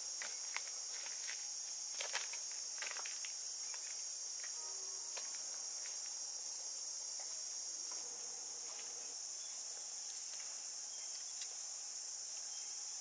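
Steady, high-pitched chorus of insects droning without a break. A few light footsteps on dry ground sound in the first three seconds.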